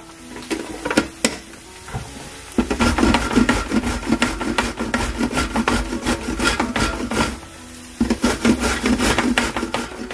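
Raw potato being grated by hand, rapid rasping strokes against the grater in two long runs with a short break between them.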